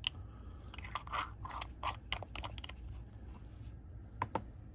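Light clicks and crunchy rustling of small plastic items being handled: a quick run of taps and rustles in the first couple of seconds, then two sharper clicks near the end.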